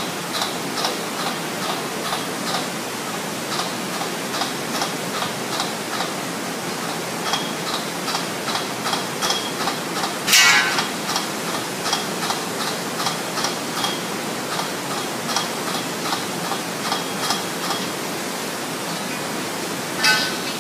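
Construction site din: a steady rushing noise with repeated short metallic clinks of hammering on steel, about two to three a second. A louder ringing clang comes about halfway through and another near the end.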